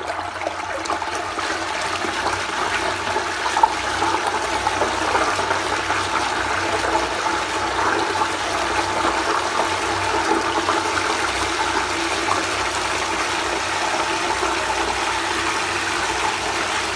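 SHYSKY DC60G-24120S-1 24 V brushless DC magnetic-drive water pump running under full load at about 125 W, with a steady rush of the water it is pumping. One sharp click comes about three and a half seconds in.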